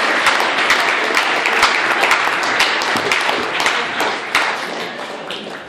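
A congregation applauding in a large hall, many hands clapping at once, dying away near the end.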